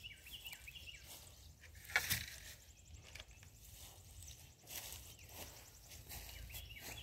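Footsteps and rustling through grass and leaf litter as a wire kennel panel is carried off, with one louder, brief noise about two seconds in.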